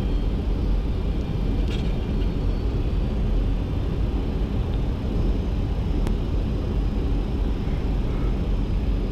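Steady flight-deck noise of a Boeing 737-200 on final approach: a continuous rush of airflow and engine noise, heaviest in the low end. A single faint click about six seconds in.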